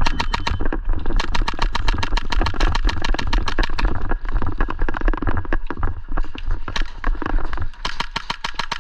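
Airsoft electric gun firing on full auto: a rapid, even rattle of about ten shots a second, with brief breaks about four seconds in and near the end.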